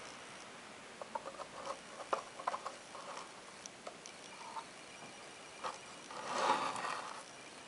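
Light handling noise around a small wooden machine: scattered small clicks and taps, then a short rubbing rustle, the loudest sound, about six and a half seconds in.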